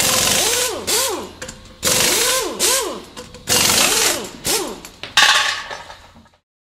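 Sound effects for an animated logo: four sudden bursts of noise, about one every second and three-quarters, each with tones that swoop up and then down in pitch and fade over a second or so. They stop about six seconds in.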